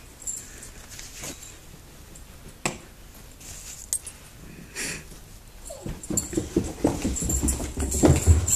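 An excited Boxer dog shifting about at the top of the stairs, then running down a flight of stairs, its paws thumping in a quick, loudening run over the last two seconds or so.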